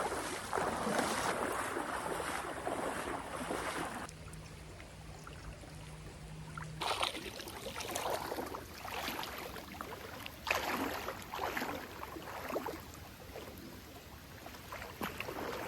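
River water splashing and rushing, with wind buffeting the microphone. The sound drops off abruptly about four seconds in, then comes back in short irregular surges.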